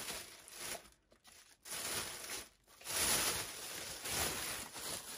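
Thin plastic bag rustling and crinkling as it is handled and pulled open, in three bursts with short pauses between.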